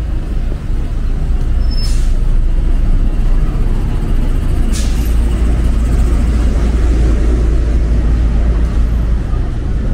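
Street traffic: a steady low rumble, with two short hisses about two and five seconds in.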